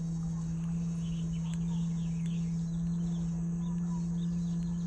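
A steady low hum on one unchanging pitch, with faint short high chirps scattered through it.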